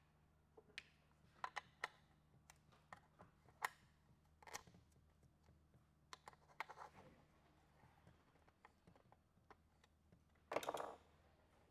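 Light, irregular clicks and taps of small metal headset parts and a hex key being handled and fitted at a bicycle frame's head tube, with a short louder rattle near the end.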